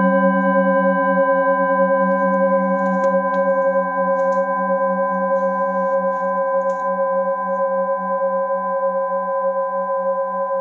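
Metal singing bowls ringing on after being struck, several steady overlapping tones with a slow wavering pulse in the low hum, slowly fading.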